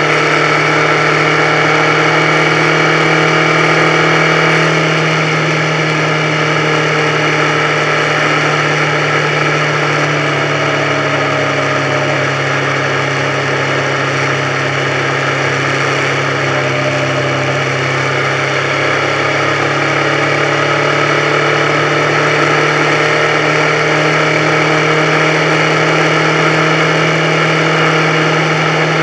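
Motorcycle engine running steadily at cruising speed, heard from on the bike with road and wind noise. The engine note drops a little about a third of the way in and climbs back a few seconds later.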